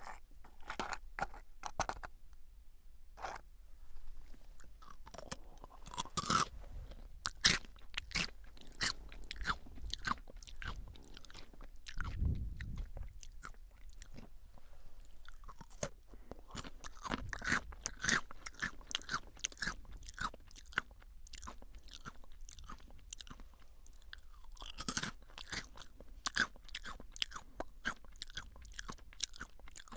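Crunchy chewing of Jagabee lightly salted potato sticks: a string of sharp crunches in irregular clusters, with short pauses between bites.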